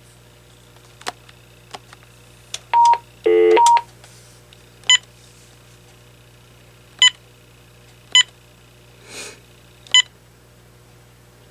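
AT&T 7720 cordless phone beeping as its buttons are pressed: a few soft clicks, a brief run of tones about three seconds in, then four short single beeps a second or two apart.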